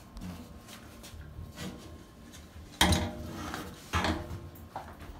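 Metal parts of a garbage disposal's sink mounting assembly being handled against the underside of the sink. There is a sharp clank with a short ring about three seconds in, a second knock about a second later, and light taps and rubbing between.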